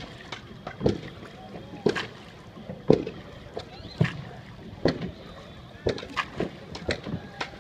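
Oars of a rowing boat knocking in their rowlocks with each stroke, about once a second, as the boat is rowed along.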